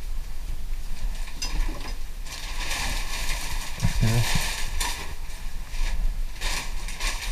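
Black plastic trash bags crinkling and a protective coverall rustling close to a body-worn camera as the bags are carried, with irregular bumps and handling knocks.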